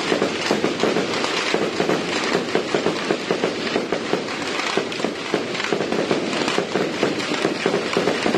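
A string of firecrackers going off: a dense, rapid crackle of bangs that starts suddenly and runs on without a break.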